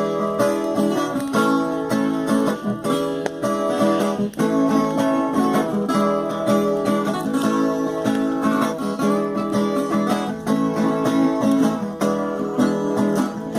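Viola caipira playing an instrumental passage in a lively cateretê rhythm, with plucked runs over strummed chords and no singing.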